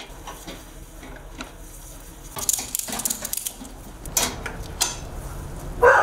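Metal clanking and rattling of a BMX bike being lifted and set onto a steel ramp stand: quiet at first, then two spells of clattering about two and a half and four seconds in. A dog barks loudly right at the end.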